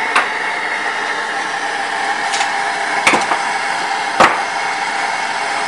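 Hand-held gas torch flame hissing steadily while heating a copper seam for soft soldering, with a few short sharp metallic taps.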